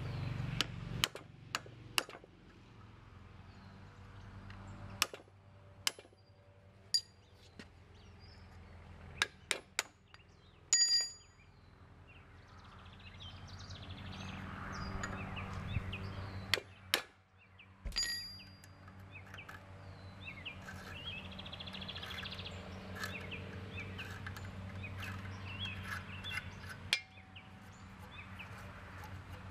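Hammer and chisel striking the cut remnant of steel exhaust pipe inside a cast-iron elbow to break it free of the threads: a dozen or so sharp metal strikes at uneven intervals, a few of them ringing, over the first eighteen seconds.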